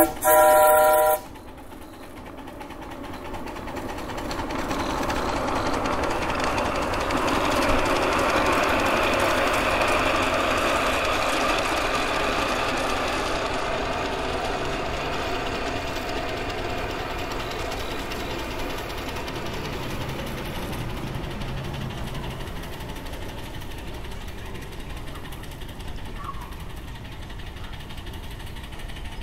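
Miniature live-steam locomotive on a 7½-inch gauge track blowing its whistle, a short blast ending about a second in. The train then runs by on its rails, growing louder over several seconds and slowly fading as it moves away.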